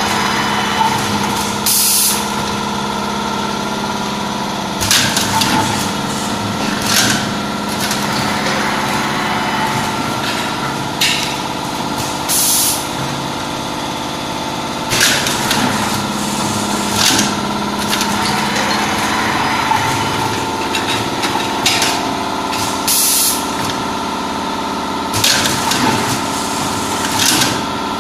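Six-stage automated pad printing machine running: a steady mechanical hum with short hisses every two or three seconds, typical of pneumatic cylinders venting air as the stages cycle.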